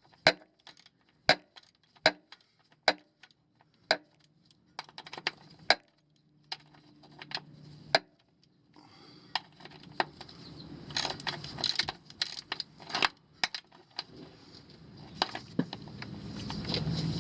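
Ratchet wrench clicking as the fill plug on the aluminum transfer case is tightened: sharp single clicks about once a second at first, then quicker, denser metallic clicking. A low rumble grows near the end.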